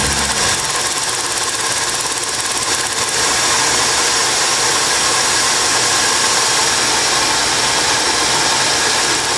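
Steady machine running noise: a continuous hiss with faint steady high whining tones.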